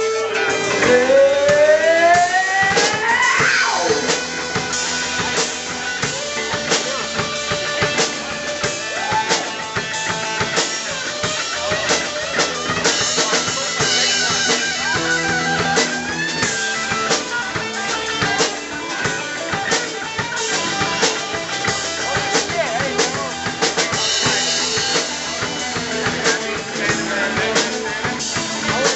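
Live rock band playing an instrumental passage: electric guitar with rising pitch glides in the first few seconds, over a steady drum kit beat and bass.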